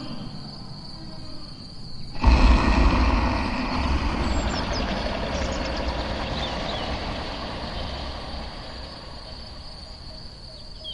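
A sudden deep rumble about two seconds in that slowly fades away, over a steady high chirring of crickets.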